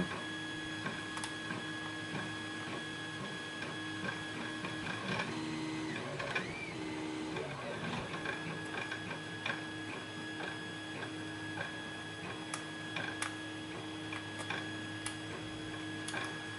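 Faint, scattered clicks of a lockpick and tension wrench working the pin stacks of a padlock during single-pin picking, over a steady electrical hum.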